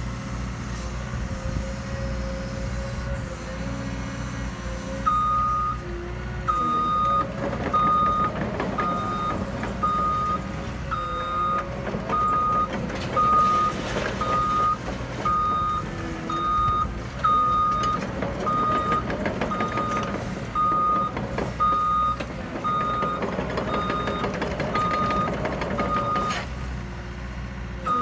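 Caterpillar 314 excavator's diesel engine running steadily while its alarm beeps about once a second, starting about five seconds in and breaking off briefly near the end.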